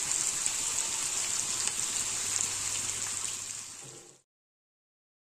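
Chicken breast fillets sizzling as they fry in melted fat in a nonstick wok, a steady hiss with small crackles. The sizzle fades and cuts off about four seconds in.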